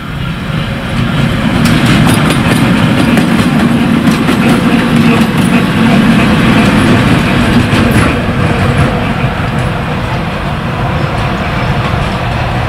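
ChME3 shunting diesel locomotive passing at close range: a steady diesel engine drone with wheels clicking over the rail joints. It is loudest from about two to eight seconds in, then fades as the locomotive moves away.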